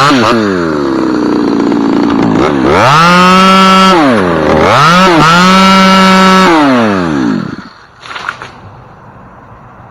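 Chainsaw dropping off full throttle, revved up twice in long blips, then winding down and stopping about seven and a half seconds in.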